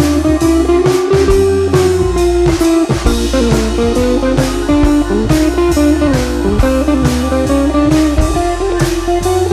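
Background music: guitar-led blues-style track with a drum kit keeping a steady beat.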